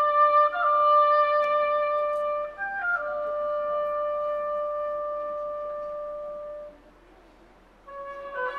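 Solo oboe playing a slow melody: a few short notes, then one long held note that dies away about seven seconds in. After a brief pause a new phrase begins near the end.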